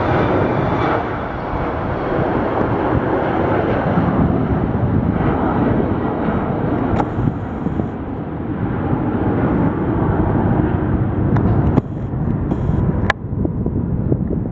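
Jet airliner engine noise: a steady rumble with a high whine that fades over the first couple of seconds, mixed with wind on the microphone. A few sharp clicks come in the second half.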